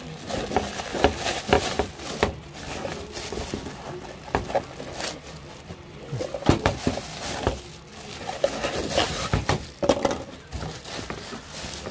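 Thin clear plastic bag crinkling and rustling in irregular crackly bursts as it is handled and pulled off a plastic part.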